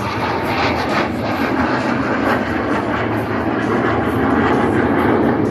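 Fixed-wing airplane engine running steadily overhead, a dense continuous noise that grows slightly stronger towards the end.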